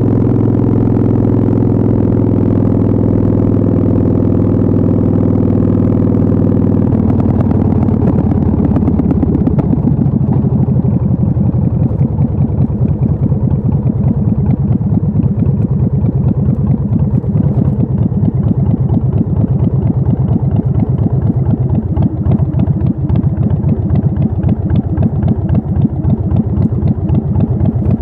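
A 2004 Big Dog Ridgeback chopper's 1750 cc V-twin engine running. For the first several seconds it holds a smooth, steady cruise, then the revs drop and it settles into a slow, uneven lope in which each firing pulse can be heard.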